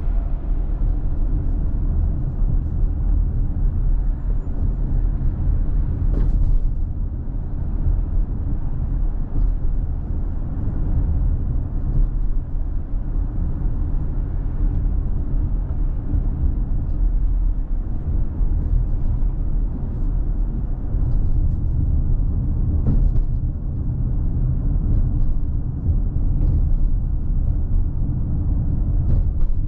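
Steady low rumble of a car being driven, engine and tyre noise, with a few faint clicks here and there.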